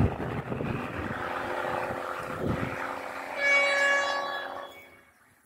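Diesel train horn from an approaching train: one steady blast of about a second and a half, a little past the middle, over a rushing noise that fades out near the end.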